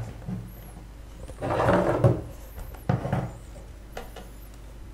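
Handling noise on an FrSky Taranis X7 radio transmitter: hands gripping and shifting its plastic case and clicking its toggle switches, with a louder scraping shuffle about a second and a half in and a few sharp clicks around it.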